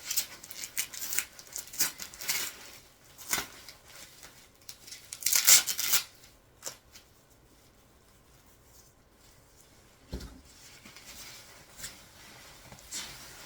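Bubble wrap and packing tape being pulled and torn away by hand: a run of crackling and ripping over the first six seconds, loudest about five and a half seconds in. After that it goes mostly quiet, with a single knock about ten seconds in.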